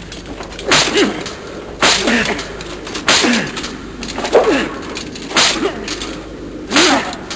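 Soldiers' shouted war cries: six short, sharp shouts at a steady rhythm, a little over a second apart, each dropping in pitch.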